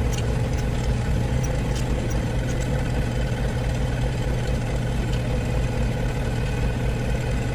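Car engine idling steadily, with an even low hum and no change in speed.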